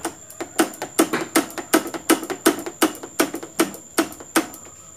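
Brake lever of a motorbike's front hydraulic disc brake pumped rapidly, clicking sharply and evenly about three times a second, to push air bubbles out of the brake line during bleeding.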